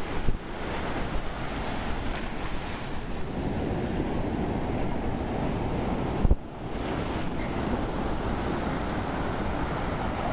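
Ocean surf washing in steadily, with wind buffeting the microphone. Two brief low thumps of wind, one just after the start and one about six seconds in.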